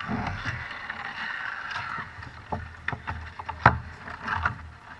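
Knocks and bumps on a plastic kayak as a fish is handled aboard, over a steady rushing noise; several sharp knocks come in the second half, the loudest about three and a half seconds in.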